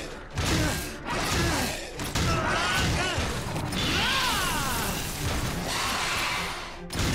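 Action-cartoon sound effects for fighting robots: mechanical clanks and whirs with sudden hits, and swooping electronic tones through the middle.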